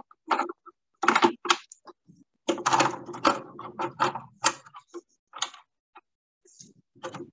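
Irregular clicks, taps and clatter of small hard objects being handled, heard over a video call, with dead-silent gaps between the bursts.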